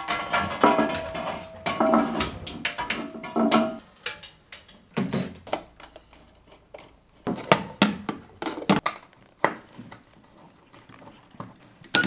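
Metal clinks and knocks of hand tools on steel conduit fittings and a metal enclosure, with several sharp taps in the second half. A brief steady whine sounds twice in the first few seconds.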